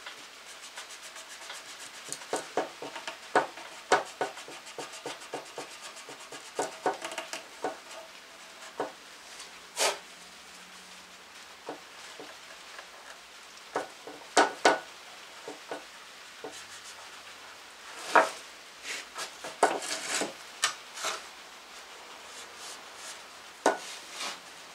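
A rag-wrapped tool scrubbing and scraping along the gasket groove of a valve cover from a Hummer H3's 3.5 L five-cylinder engine. Irregular sharp clicks and taps come as the tool knocks against the cover, in flurries about 2–5 s in, around 14–15 s and again around 18–21 s.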